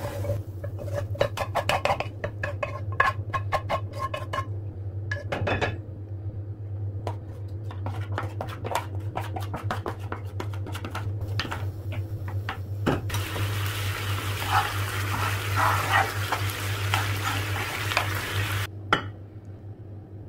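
A spatula scraping and clacking against a frying pan as cooked beef bulgogi is emptied into a bowl, then marinated beef sizzling as it hits the hot pan for about five seconds before cutting off suddenly. A steady low hum runs underneath.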